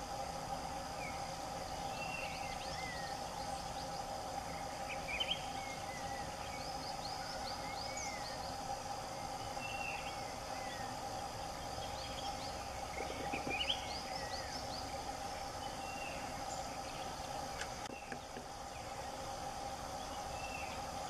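Forest ambience: many small birds give short chirps and down-slurred whistles over a steady drone, with one brief low knock about thirteen seconds in.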